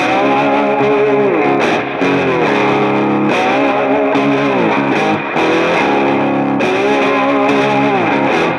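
Loud background music led by a distorted electric guitar, playing a riff that repeats about every two seconds with notes bending downward at the end of each phrase.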